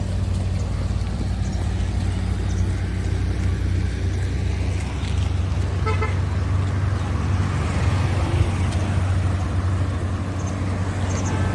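Motor vehicle engine running steadily with road noise. A vehicle horn toots briefly about six seconds in, and again near the end.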